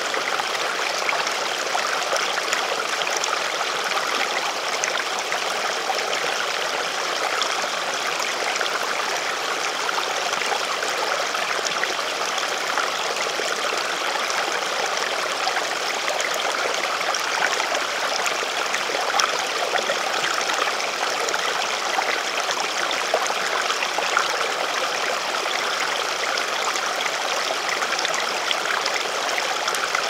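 Mountain stream flowing: a steady rush of running water.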